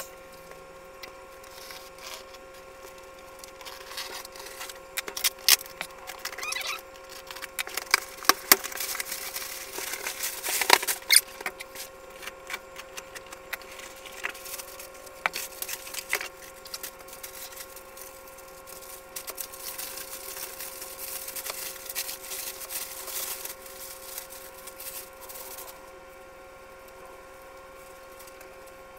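Unpacking a long cardboard shipping box by hand: cardboard scraping and knocking, and plastic wrapping crinkling and rustling in irregular bursts, over a steady faint hum.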